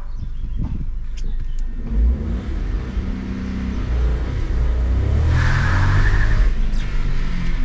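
Volkswagen Polo 1.0-litre TSI three-cylinder turbo petrol engine accelerating, heard from inside the cabin: the engine note comes in about two seconds in and climbs in pitch as the revs rise, with a brief hiss a little past halfway.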